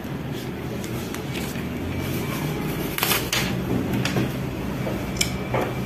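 Sheets of paper being handled and leafed through: a few short rustles and soft knocks over a steady room hum.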